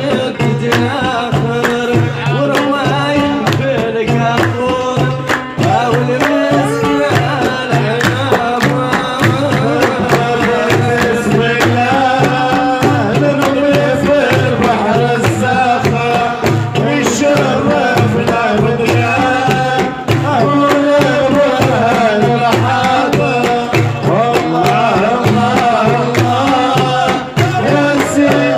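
Algerian Saharan folk song from Adrar in the tbel chellali style: a man singing over a steady drum beat of about two strokes a second, with a frame drum, a hand drum, a plucked long-necked lute and hand claps.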